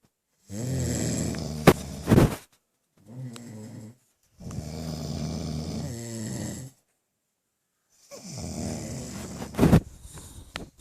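A man snoring: four long snores separated by short gaps of silence, the first and last ending in a louder, sharper burst.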